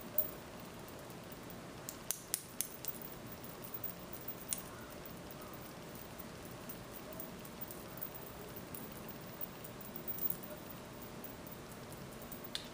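Quiet room tone, a steady faint hiss, with a handful of light clicks and taps from handling makeup tools, a small cluster of them about two seconds in.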